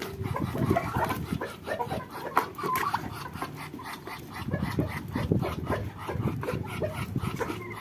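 A mixed flock of chickens, turkeys and Muscovy ducks feeding from a plastic tub: many quick pecking clicks with short, scattered bird calls.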